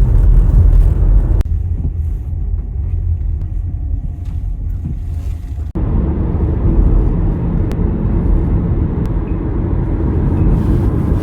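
Low, steady rumble of a car driving, with abrupt changes about a second and a half in and again past the middle where the sound cuts between takes.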